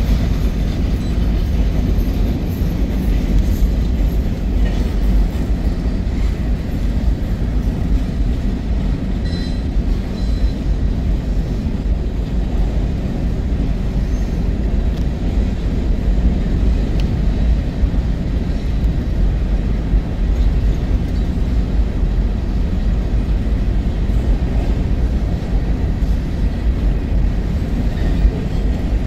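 Freight train boxcars rolling past on the track: a steady, low-pitched noise of steel wheels on rail that does not let up.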